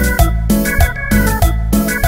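Upbeat dance music: a keyboard melody over a heavy bass line and a steady beat.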